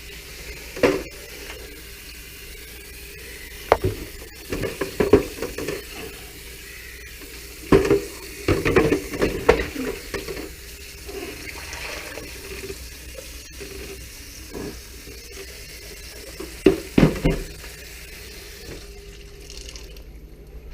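Tap water running into a sink while the ice maker's plastic ice bin is rinsed out, with several knocks and clatters as the bin is handled. The water stops near the end.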